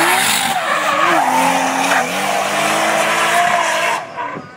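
Drift car sliding past close by: loud tyre squeal from the spinning rear wheels over the engine held high in the revs, its pitch wavering as the throttle is worked. The noise drops off sharply about four seconds in.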